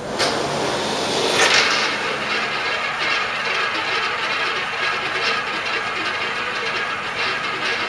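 Roulette ball rolling fast around the spinning wheel's track: a steady whirring rumble with a fine rapid clatter. It starts suddenly just after the beginning and swells briefly about a second and a half in.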